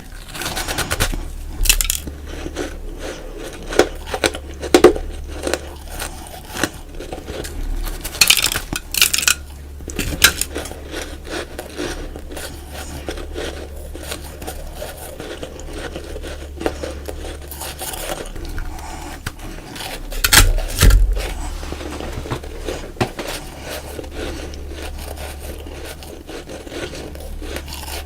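Close-miked biting and chewing of crunchy frozen freezer-frost snowballs: a run of sharp crunches, loudest in clusters about 1, 5, 9 and 21 seconds in, over a steady low hum.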